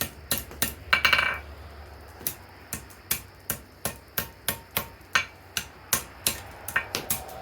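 Hand hammer striking hot steel on an anvil in a steady rhythm of about two to three blows a second, forging a root hook. One blow about a second in rings out longer than the rest.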